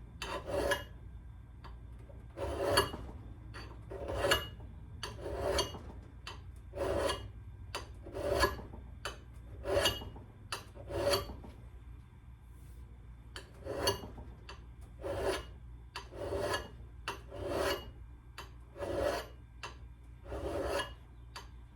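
Hand file scraping along the steel edge of an old axe head in single, slow sharpening strokes, about one a second, with a short pause midway.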